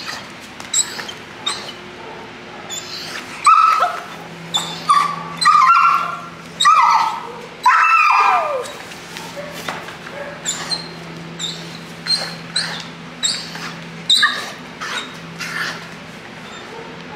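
Young shepherd puppy on a leash barking and yipping in quick, high-pitched bursts, with a run of louder, longer barks and whines in the middle, one of which slides down in pitch.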